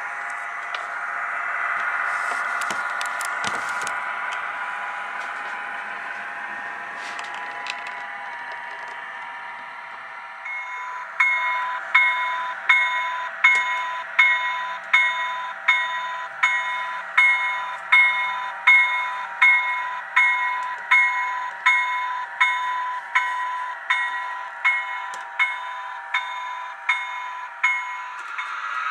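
DCC sound decoder in a model Amtrak Dash 8-32 diesel locomotive playing through its small speaker: a steady diesel engine sound, then from about eleven seconds in the locomotive bell ringing steadily, about one and a half strokes a second, each stroke fading, until it stops near the end.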